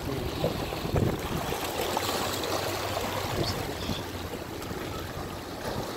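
Water washing and trickling among shoreline rocks, with a low wind rumble on the microphone.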